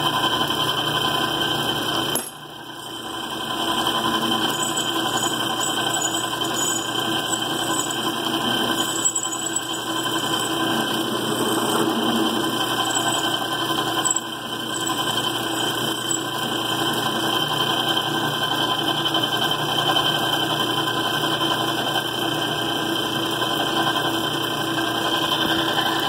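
Worn-out metal lathe running steadily while it takes a light spring pass on a threaded rod, its sound dipping briefly about two seconds in.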